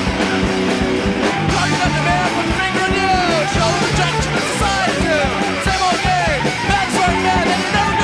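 Early-1980s hardcore punk song: fast, distorted electric guitar with bass and drums, loud and dense throughout.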